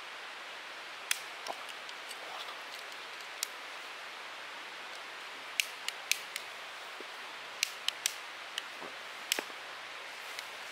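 About a dozen light, sharp clicks and taps at irregular intervals from small objects being handled, over a steady faint hiss.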